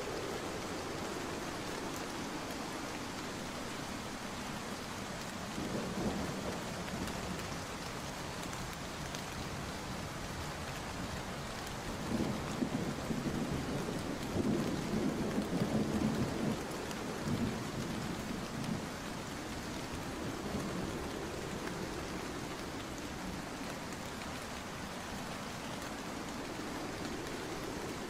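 Steady heavy rain pattering down. Low rumbles swell up about six seconds in and again from about twelve to seventeen seconds in.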